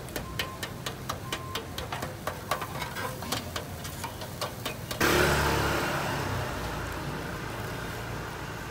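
Charcoal fire under a wire grill basket of fish, crackling and ticking irregularly, about three sharp ticks a second, as the coals are fanned. About five seconds in, a sudden loud rush of noise starts and fades slowly.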